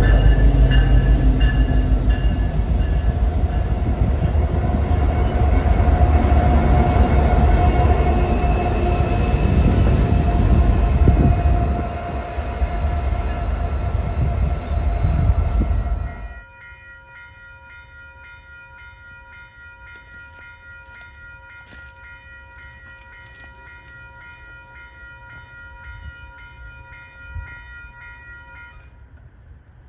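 Norfolk Southern diesel locomotives, including EMD SD70ACe 1016, passing close by, with a heavy engine and wheel rumble on the rails and a horn sounding briefly at the start. About 16 seconds in, the rumble cuts off abruptly, leaving a much quieter set of steady high tones with a faint regular pulse.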